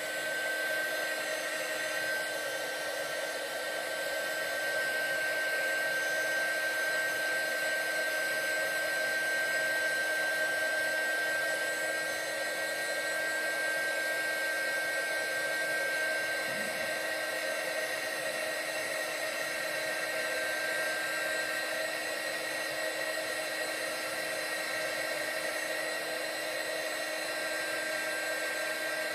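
Handheld craft heat tool running steadily, its fan whirring with a steady high whine as it blows hot air over a freshly inked paper tag to dry the ink.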